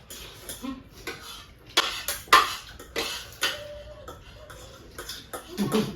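Eating utensils clinking and scraping against bowls as noodles are eaten, a run of irregular sharp clicks and clatters.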